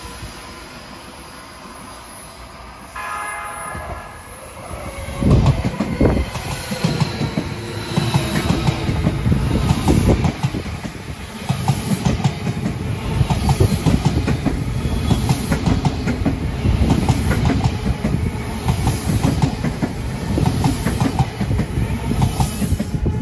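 An Odakyu Line electric commuter train sounds a short horn blast about three seconds in. It then passes close by, its wheels clattering rhythmically over the rail joints.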